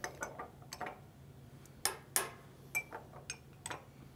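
Spoon clicking and clinking against a small glass jar of peach jam as the jam is scooped out: a string of light, irregular clicks, one with a brief glassy ring near the end.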